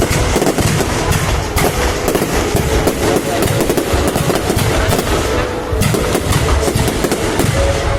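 Fireworks display going off without pause: a dense, rapid run of bangs and crackles.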